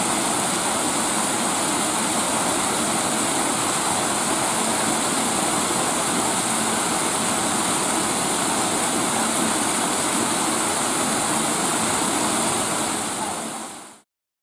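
Steady rush of falling water from a garden waterfall, which fades out and stops near the end.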